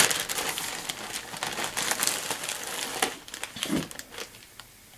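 Plastic bag crinkling and rustling as it is handled, in quick irregular crackles that thin out and die away near the end.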